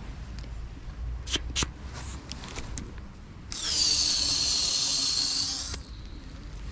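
CO2 cartridge inflator topping up a mountain-bike rear tire that has a slow leak: a single loud, steady hiss of gas lasting a little over two seconds that stops abruptly. Two sharp clicks come a little over a second in.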